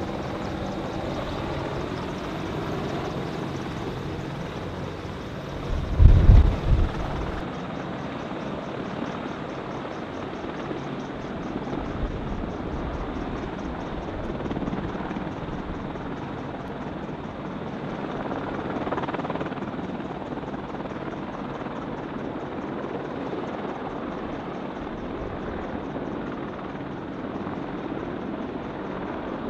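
AH-64E Apache attack helicopters hovering and air-taxiing low, their rotors and twin turboshaft engines making a steady, even drone. About six seconds in there is a brief, loud, low-pitched rumble.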